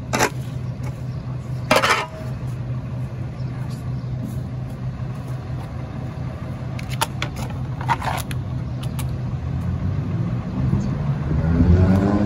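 Rear-loader garbage truck's diesel engine idling with a steady hum, with a few short, sharp bursts of noise. Near the end the engine speeds up and its pitch rises.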